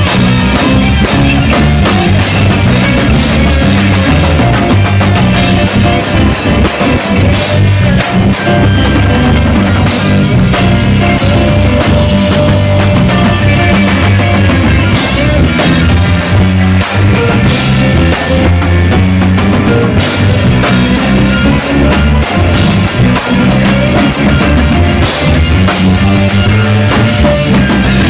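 Live rock band playing loudly without vocals: electric guitar over a drum kit, bass guitar and keyboard.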